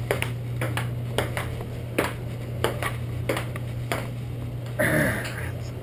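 Table tennis rally: the ball clicking sharply off the paddles and the table, two or three times a second. A brief louder noisy sound comes near the end.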